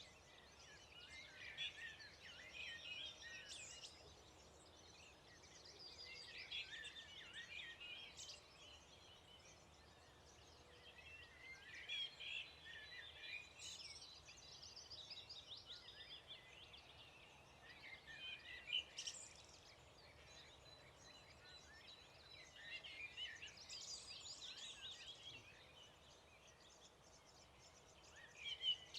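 A songbird singing, repeating a short, busy, high phrase of two to three seconds about every five seconds, over a faint steady background hush.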